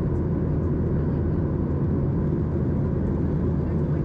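Steady cabin noise of a Boeing 737-800 in flight: the drone of its CFM56 engines and the rush of air past the fuselage, heard from inside the cabin, with a faint steady whine above it.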